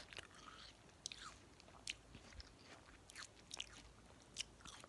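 A person biting and chewing watermelon close to the microphone: faint, irregular wet crunches and sharp mouth clicks.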